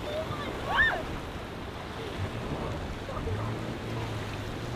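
Choppy inlet water and wind on the microphone, with one short rising-and-falling shout about a second in. Near the end a boat engine starts a steady low idle.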